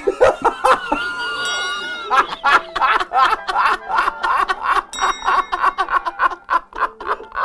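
A man bursting into a long fit of hearty laughter, a rapid run of 'ha-ha-ha' that keeps going. A bell-like ding sounds about a second and a half in and again about five seconds in.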